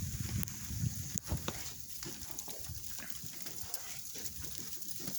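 Snow crunching and scraping: irregular soft crunches with a few sharp clicks.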